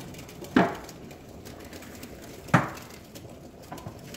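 Two short, dull knocks about two seconds apart, over faint kitchen room sound.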